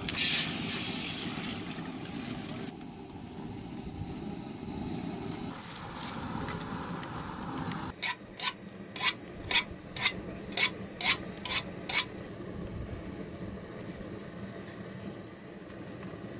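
Water splashing as hands rinse dal in a steel pot, then a knife chopping on a wooden cutting board: about nine sharp chops, roughly two a second.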